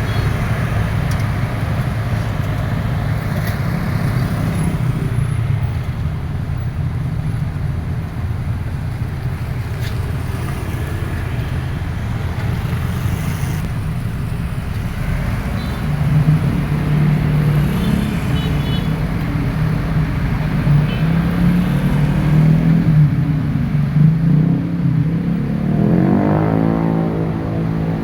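Excavator's diesel engine running steadily, louder from about halfway through, with a short rise in engine pitch near the end.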